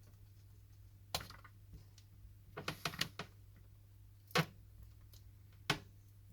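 Scattered light clicks and taps of small tools and phone parts being handled during a smartphone screen repair: one tap, then a quick cluster of several clicks, then two more single taps. A steady low hum runs underneath.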